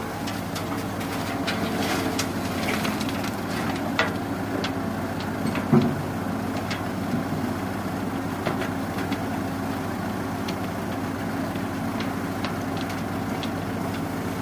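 Excavator's diesel engine running steadily, with scattered clanks and knocks and one louder thud a little under six seconds in.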